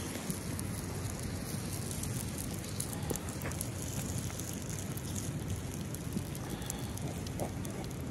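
Small dung fire crackling faintly, a few scattered ticks over a steady rushing background noise.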